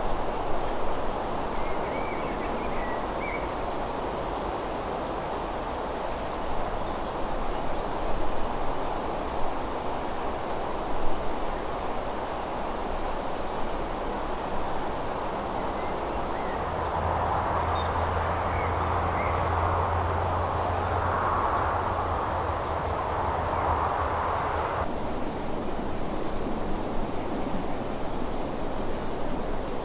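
Steady outdoor rushing noise with a few faint bird chirps. For several seconds past the middle a low steady hum joins and the rushing grows a little louder, and the sound changes abruptly near the end.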